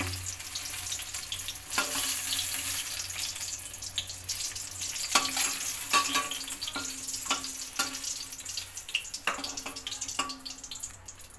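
Brinjal slices sizzling steadily in shallow hot oil in a metal kadai. A steel spoon clinks and scrapes against the pan about ten times as the fried pieces are lifted out.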